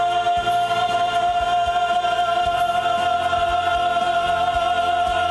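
Male vocal trio singing one long held note together over instrumental accompaniment, with a slight vibrato in the second half.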